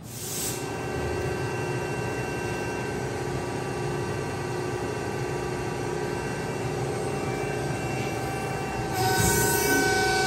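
CNC servo press brake running: a steady machine hum with several whining tones, stepping louder about nine seconds in.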